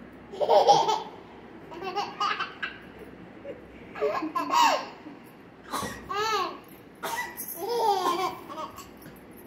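A toddler laughing in repeated bursts of giggles, about five bouts with short pauses between.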